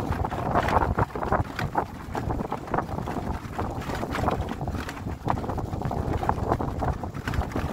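Wind buffeting the microphone over the rumble of a vehicle driving a rough, stony dirt track, with irregular sharp knocks and rattles from the bumps.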